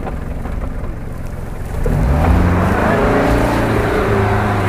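Off-road 4x4's engine at full throttle, pulling up a steep slope under load; a little under two seconds in the revs rise sharply and then stay high.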